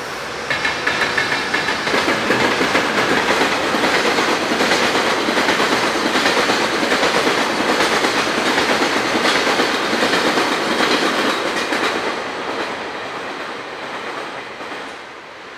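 Freight train passing close by, its wheels clicking over the rail joints in a steady rhythm. It is loud for about ten seconds, then fades away near the end.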